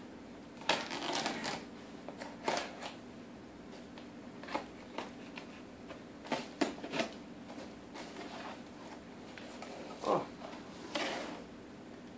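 Cardboard box being opened by hand: a series of short, irregular rustles, scrapes and crinkles as the packing tape is slit with a utility knife and pulled away and the cardboard flaps are opened.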